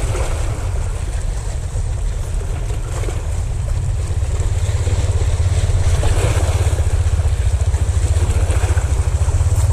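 Wind buffeting the microphone as a loud, fluttering low rumble, over a faint wash of choppy sea.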